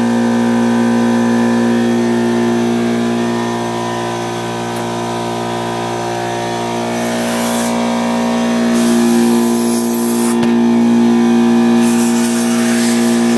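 Air compressor running with a steady hum, with three hissing blasts of compressed air in the second half, the middle one longest, blown under a motorcycle handlebar grip to expand the rubber so it slides off.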